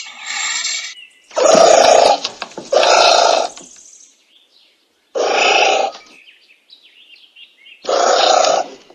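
Anteater giving four harsh calls, each just under a second long and spaced two to three seconds apart, with faint chirps in the gaps.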